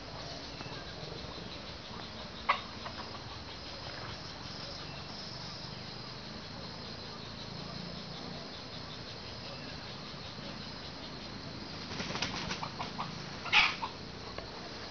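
Junglefowl wings flapping in a quick run of beats near the end, loudest in one burst, after a single sharp snap about two and a half seconds in.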